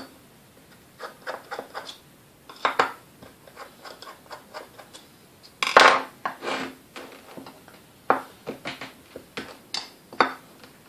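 Irregular small metallic clicks and clinks of a screwdriver working at the brush-holder set screws inside a vintage Sunbeam Mixmaster's motor housing, with tools and parts knocking on the workbench. A louder clatter of handled metal comes about six seconds in.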